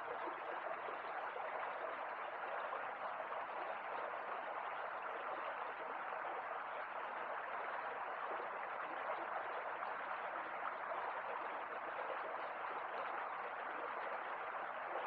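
Steady noise of river water flowing, even throughout with no distinct events.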